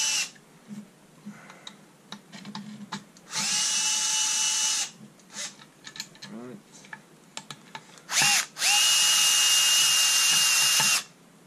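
Cordless drill-driver backing out the screws that hold an LED cooler, in several short runs of steady motor whine. One run stops just after the start, another of about a second and a half comes in the middle, then a quick blip and a longer run near the end. Light clicks of the bit and parts being handled come in between.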